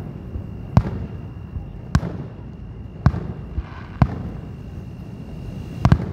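Aerial firework shells bursting: sharp bangs roughly once a second, five in all, the last a quick double bang near the end.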